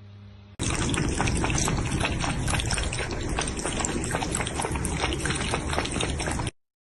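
Two cats lapping water from a drinking glass: a dense run of quick, wet tongue laps that starts about half a second in and cuts off abruptly near the end.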